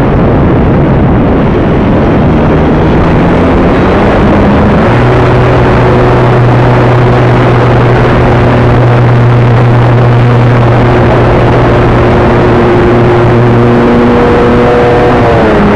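Electric motor and propeller of a Multiplex Acromaster RC plane heard from the onboard camera in flight, a steady whine under heavy wind rush on the microphone. The pitch rises about four seconds in, holds, then drops near the end.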